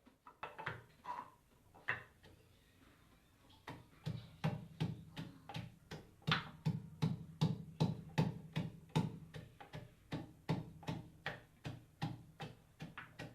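Kitchen knife chopping on a cutting board: a few separate strokes, then from about four seconds in a steady run of knocks, about two to three a second.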